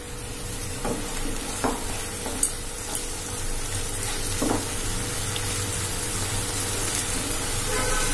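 Prawn and egg masala sizzling in a nonstick kadai while a wooden spatula stirs it, a steady hiss with a few short knocks of the spatula against the pan.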